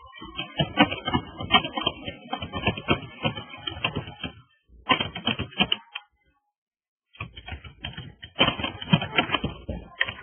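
Computer keyboard typing: quick runs of keystrokes, with a pause of about a second and a half just past the middle.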